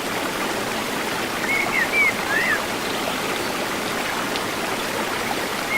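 Steady rush of running water at a waterfall, with a few short bird chirps about one and a half to two and a half seconds in.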